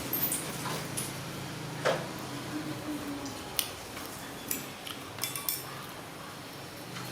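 Scattered light clicks and clinks of small hard plastic objects being handled, likely toy eggs and candy packaging during unboxing, with a sharper knock about two seconds in, over a low steady hum.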